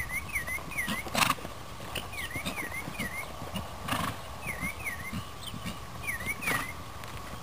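A bird repeating a short chirp call, in twos and threes about every second, over a faint steady tone. A few brief rushes of noise come through, the loudest about a second in.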